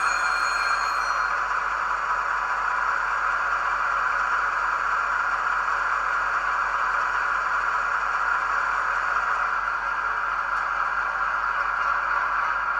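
ESU LokSound 5 sound decoder in a model ÖBB 2016 Hercules diesel locomotive playing a steady locomotive running sound through the model's small speaker: an even noise with no rhythm, strongest in the upper middle range. A few faint higher tones fade out about a second in.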